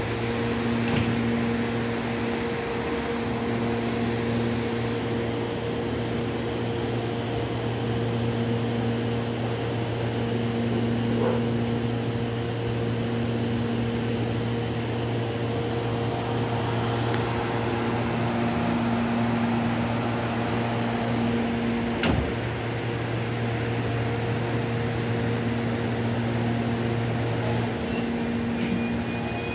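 CPTM series 8500 electric multiple unit standing at the platform, its onboard equipment running with a steady hum of several constant tones. A single sharp knock about two-thirds of the way through, and right at the end a faint rising whine as the train starts to move off.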